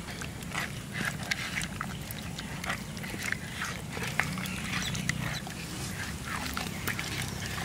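Hands squelching and squishing raw koi fish (climbing perch) pieces with spices and mustard oil in a clay bowl: a run of irregular short wet squelches and smacks.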